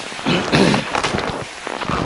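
Footsteps crunching through snow, an uneven run of steps.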